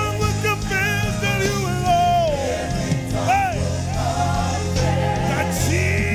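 Live gospel praise song: men and women singing together into microphones over a band with a steady bass line, the sung melody gliding and bending in pitch.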